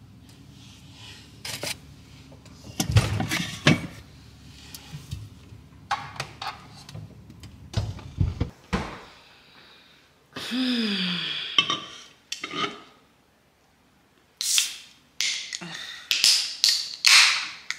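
Things being handled in a refrigerator's door shelves and bins: bottles, jars and plastic bins knocking, clinking and thunking against each other, over a low steady hum in the first half. Near the end comes a run of louder scraping, rustling clatter.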